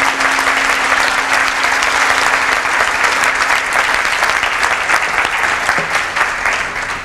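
Audience applauding, a dense patter of many hands clapping that dies down near the end.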